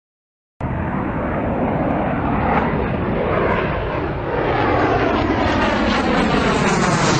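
Jet aircraft engine noise that starts abruptly about half a second in and carries on loud and steady, with a whooshing tone that slides up and down in pitch.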